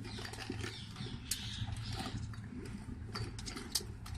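Scattered light clicks and taps of a screwdriver and small parts being handled, over a steady low hum.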